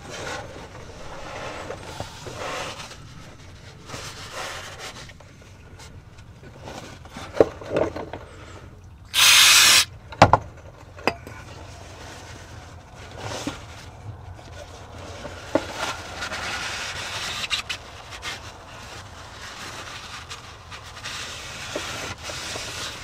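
Used engine oil trickling in a thin stream from the drained oil pan of a Mercedes M273 V8 into a drain pan. About nine seconds in there is a loud burst of hiss lasting about a second, with a few sharp knocks around it.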